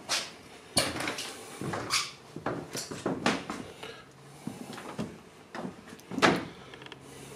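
A string of knocks and clunks from wooden cabin doors and cupboards being handled, the loudest about six seconds in.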